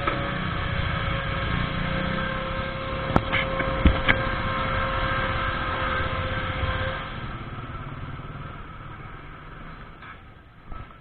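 Motorcycle engine idling and creeping along a street, with a few sharp knocks about three to four seconds in. The engine sound drops away after about seven seconds.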